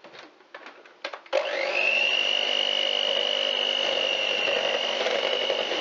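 Electric hand mixer beating choux pastry dough. After a few light knocks, the motor switches on about a second and a half in, its whine rising quickly and then holding steady at one pitch.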